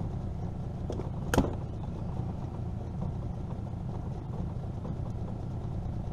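Steady low rumble with one sharp knock about a second and a half in and a fainter knock just before it, as a large flathead catfish is handled on the floor of a jon boat.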